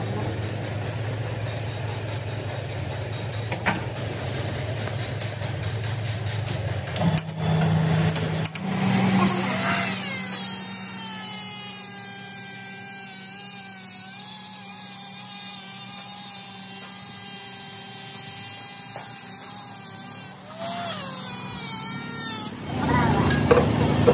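Metal lathe running. A steady hum gives way about ten seconds in to a whine that rises as the spindle speeds up, holds steady, then falls away as it stops a few seconds before the end. Near the end come metal clanks of a chuck key tightening the chuck.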